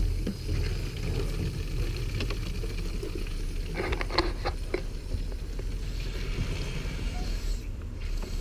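Water running from an outdoor tap into a plastic bottle, with a few sharp clicks of the bottle being handled about four seconds in, over a steady low rumble.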